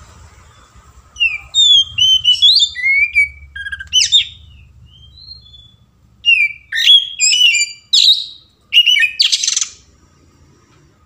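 Oriental magpie-robin (kacer) singing its loud, varied 'ngeplong' song: quick whistled and chirped notes sliding up and down, in two bursts with a short pause between them. It ends in a harsher, buzzy phrase.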